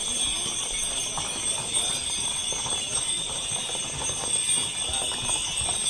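Several horses' hooves clip-clopping on asphalt at a walk, an irregular stream of hoofbeats from a line of ridden horses passing close by, over a steady high-pitched hiss.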